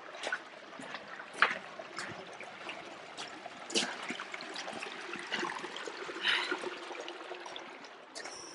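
Shallow stream trickling over gravel, with a few footsteps in the water and on the stones.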